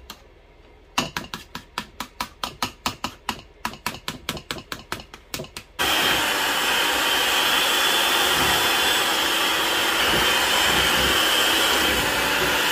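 A flour-filled metal mesh sieve shaken over a mixing bowl, rattling in quick taps about five or six times a second. Just before six seconds in, an electric hand mixer starts and runs with a loud, steady whir as its beaters mix flour into creamed butter and sugar.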